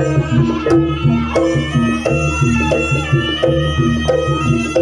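Jaranan (kuda lumping) accompaniment music: drums and gamelan-style percussion with pitched melody notes playing a fast, steady repeating rhythm.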